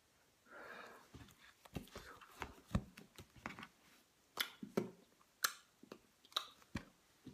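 Handling noise from hands and a paperback guidebook. A brief rustle is followed by an irregular string of about a dozen sharp clicks and soft thumps.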